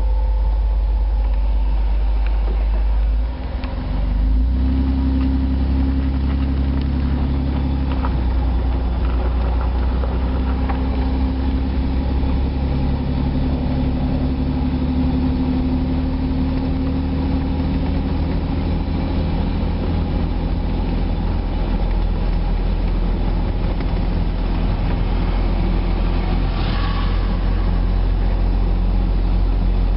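Steady low drone of a vehicle's engine and tyres as it drives along an unpaved street, heard from inside the cab. The loudness dips briefly about three seconds in.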